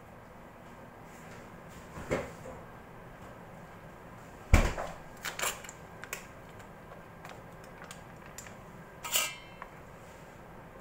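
Dishes and kitchenware knocking and clattering: a handful of sharp knocks, the loudest about four and a half seconds in, and one near the end that rings briefly like metal.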